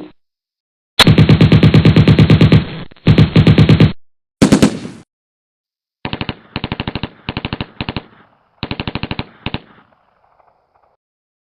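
Automatic gunfire sound effect: a long, loud burst of rapid, evenly spaced shots, then two shorter bursts, followed by a run of short, quieter bursts of a few rounds each from a lighter-sounding weapon, with a faint fading echo near the end.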